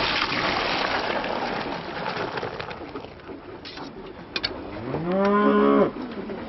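A cow mooing once near the end: one call that rises in pitch, holds for about a second and stops sharply. Before it, a couple of seconds of noisy hiss and a few sharp clicks.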